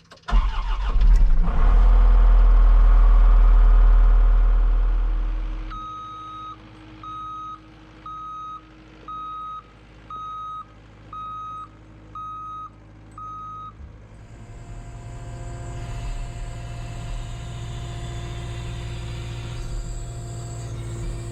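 New Holland L220 skid steer: a loud low rumble for the first five seconds or so, then the backup alarm beeps eight times, about once a second, as the machine reverses. After the beeps the engine runs steadily and grows louder.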